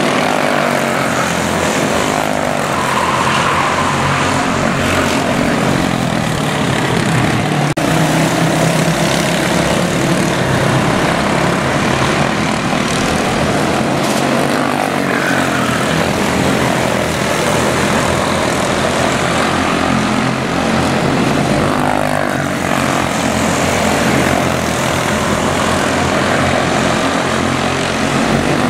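Several quarter midget race cars' small single-cylinder Briggs & Stratton Animal engines buzzing around the oval, loud and continuous, the pitch rising and falling as the cars accelerate down the straights and pass by.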